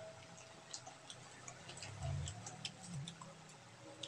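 Close-miked eating by hand and chewing: a scatter of small mouth and finger clicks, with one low dull thump about two seconds in.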